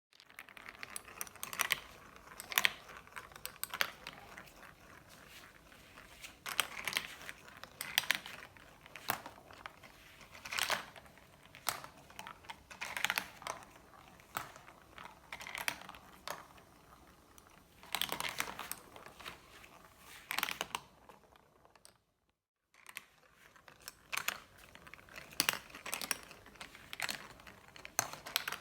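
Marbles rolling and clattering down a marble run track, with many sharp clicks and knocks as they hit the track pieces and each other. The sound stops briefly about three-quarters of the way through.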